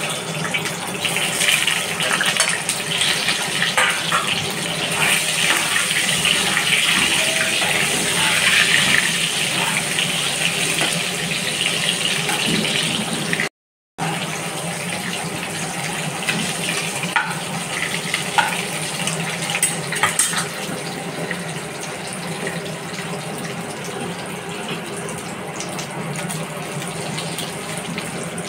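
Hot oil sizzling steadily in a pan as potato pieces fry, with occasional scrapes and taps of a spatula, then as dried red chillies and whole spices fry in the bubbling oil. The sound cuts out briefly about halfway through.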